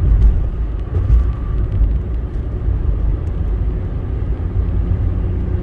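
Steady low rumble of a car on the move, heard from inside the cabin: engine and road noise with no distinct events.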